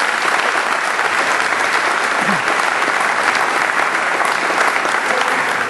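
An audience applauding: dense, sustained clapping at an even level.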